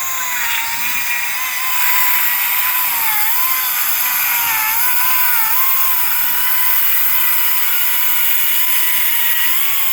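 Echo DCS-2500T 56 V brushless battery chainsaw cutting through a log, its motor a steady whine that dips briefly in pitch a few times as the chain bites into the wood, over the hiss of the chain and flying chips.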